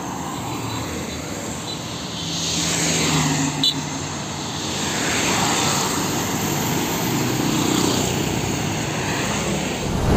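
Highway traffic passing close by: a large lorry's engine hum and tyre roar swell as it goes past, and more vehicles follow. There is one short sharp sound a little under four seconds in.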